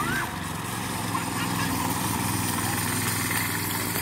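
Go-kart's small gas engine running steadily as the kart drives across grass.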